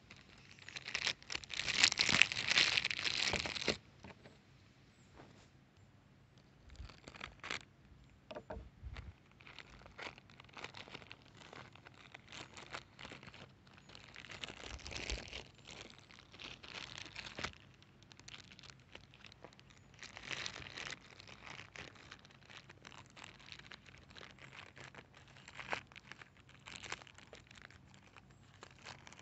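Thin plastic packaging bag crinkling and rustling as hands grip and pull at it to open it, loudest for a few seconds at the start, then in shorter bursts with small clicks between.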